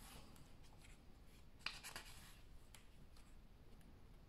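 Faint paper rustling as the pages of a large hardcover book are turned by hand, with one sharp page snap about one and a half seconds in.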